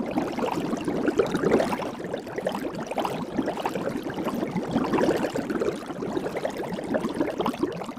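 Soap bubbles crackling and popping: a dense, continuous stream of many tiny pops.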